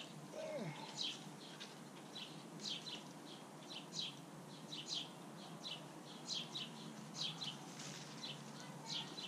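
A small songbird chirping over and over, short high chirps often in quick pairs, about two a second, over steady background noise.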